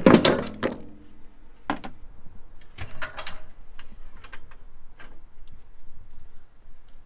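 Charcoal briquettes clattering as they are poured into the metal charcoal hopper of a Masterbuilt 560 grill, dying away within the first second. Then a few scattered metal knocks and clicks.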